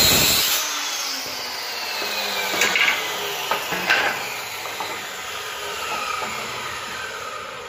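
Handheld electric circular saw finishing a cut through plywood, then its blade spinning down with a long falling whine. A few knocks and clatters of the cut plywood pieces being moved come a few seconds in.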